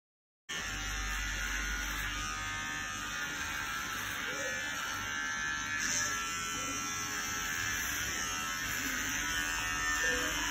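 Battery-powered electric hair clippers buzzing steadily as they are run through short, tightly curled hair. The buzz starts suddenly about half a second in.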